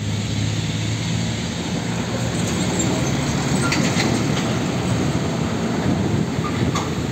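Diesel engines of red Isuzu fuel tanker trucks running as they drive past, with tyre and road noise: a steady low engine hum in the first couple of seconds, then a broader rumble, and a few short clicks.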